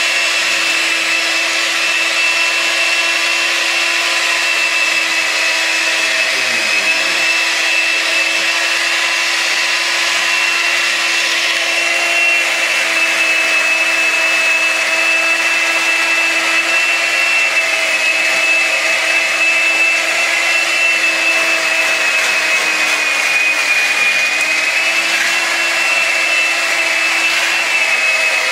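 Electric hand mixer running steadily with a high motor whine as its beaters mix cake batter in a bowl; the pitch sags briefly about three-quarters of the way through.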